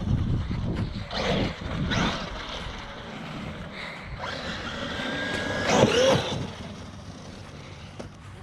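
Traxxas RC car motor revving up and down several times as its wheels spin, with the loudest rising whine about six seconds in.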